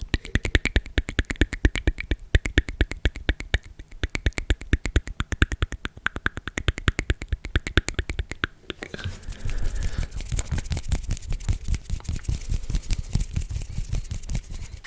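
Close-miked ASMR mouth sounds: a fast, even run of wet tongue-and-lip clicks, about eight a second, changing about nine seconds in to denser, rougher smacking with more low thump and hiss.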